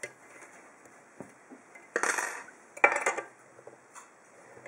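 Steel lock-picking tools (hook picks and tension wrench) clinking and clattering against the lock cylinder and each other. A couple of light clicks come first, then two louder metallic clatters about two and three seconds in, as the tools come out of the pin-tumbler cylinder once it has been picked open.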